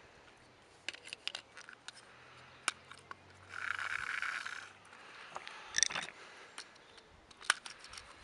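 Clicks and taps of small plastic parts being handled on a battery-powered toy train engine while its battery is fitted. About three and a half seconds in there is a rasping scrape lasting over a second.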